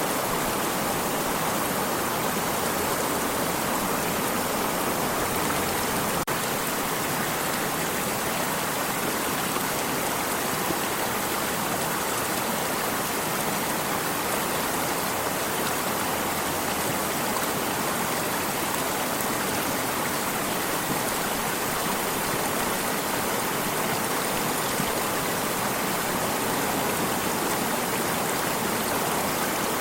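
Stream water flowing and rushing in a steady, unbroken wash.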